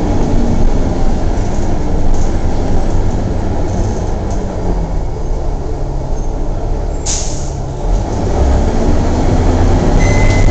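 Interior running noise of a Gillig Advantage transit bus: its Cummins ISM diesel engine and road rumble. The sound eases off for a few seconds, a short hiss of air comes about seven seconds in, and then the engine pulls harder again.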